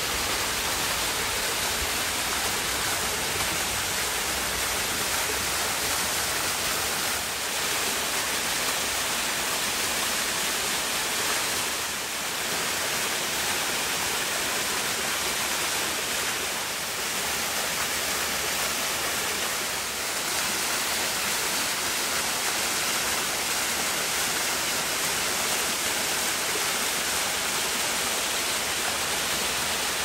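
Small mountain waterfall: a steady rush of falling water, even and unbroken.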